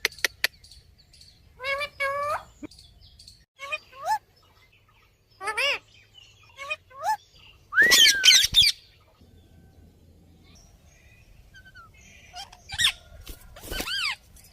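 A pet parrot making a string of short, separate pitched calls that bend up and down in pitch. The loudest comes about eight seconds in and is followed by a pause of about three seconds, with a few light clicks right at the start.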